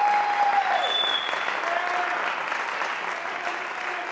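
Audience applauding steadily, with a few long held whoops from the crowd over the clapping, the longest fading out about a second in.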